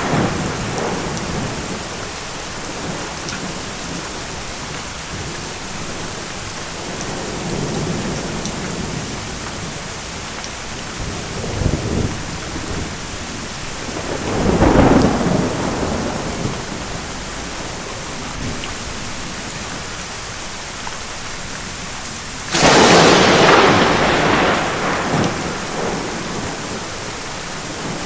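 Steady heavy rain. Thunder rolls through it: a low rumble about a third of the way in, a louder peal near the middle, and a sudden close crack about four-fifths of the way in that fades slowly.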